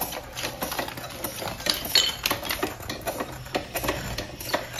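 Asada hand-operated hydraulic pressure test pump being worked by its lever: a rapid, irregular run of clacks and knocks from the handle and valves as it pumps water into the pipes for a leak test.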